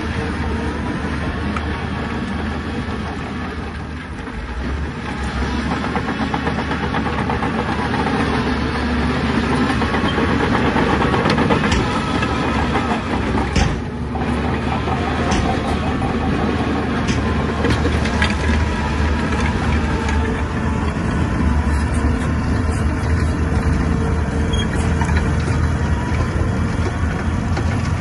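Diesel engine of heavy earthmoving machinery running steadily under work load, its note rising and falling, with a few sharp metallic clanks.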